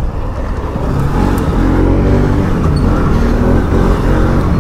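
Motorcycle engine running while riding, with wind rushing over the microphone; the engine note steadies about a second and a half in.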